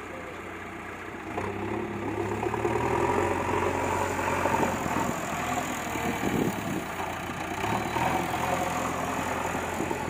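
A JCB backhoe loader's diesel engine runs steadily while the machine works, carrying a bucket of soil, tipping it and driving back. The engine grows louder about a second and a half in as it works harder.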